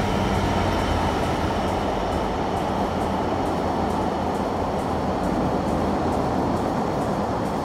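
Diesel freight locomotive, likely a Class 66 in GB Railfreight livery, passing close by with its engine hum strongest in the first second or two. Container wagons follow with steady rolling wheel noise and regular faint clicks of wheels over the rail joints.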